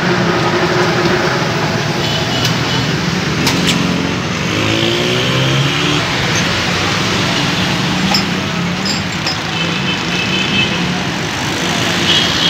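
Steady roadside traffic noise from passing cars and engines, with people's voices mixed in.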